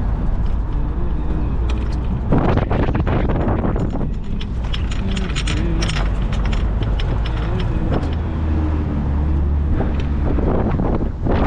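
A car being driven, its engine and road noise rumbling steadily, with the engine note rising and falling. A couple of loud rushes of noise break in, about two seconds in and near the end.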